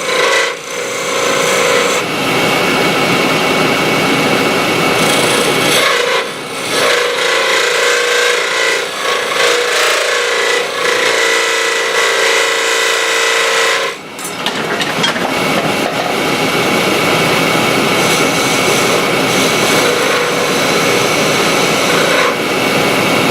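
Union Jubilee wood lathe running while a small hand-held turning tool cuts a spindle: continuous scraping cut over the lathe's steady hum, with brief breaks about six and fourteen seconds in.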